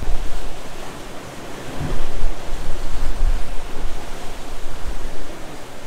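Wind buffeting the microphone over the rush of the sea around a sailing boat under way, with a heavy low rumble that gusts louder about two seconds in.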